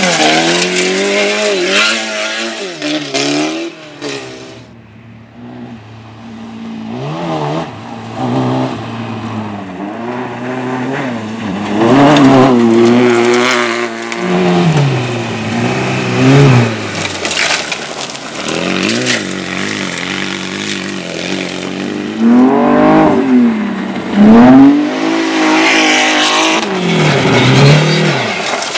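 Rally car engines revving hard, with the pitch repeatedly climbing and dropping through throttle blips and gear changes as the cars race past. The sound fades briefly a few seconds in, then returns loud.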